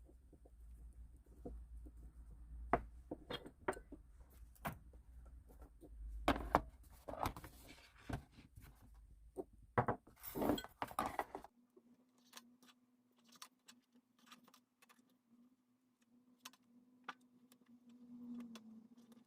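Small objects handled at close range: a scatter of light clicks, taps and rustles, busiest in the first half. About halfway through, the rustling stops and the clicks thin out over a faint steady hum.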